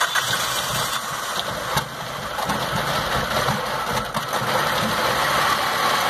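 A 2006 Stratus's 2.0-litre four-cylinder DOHC engine, just started, running roughly and unevenly at idle: it is misfiring, shaking and lacking power.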